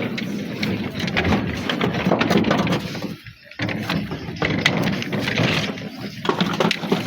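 Cut granite stones clacking and knocking against one another as they are handled and stacked, a busy run of sharp knocks with a brief lull about three seconds in.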